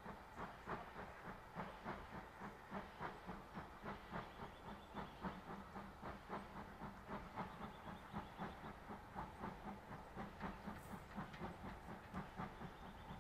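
Steam locomotive chuffing as it pulls away under steam, its exhaust beats coming evenly at about two to three a second.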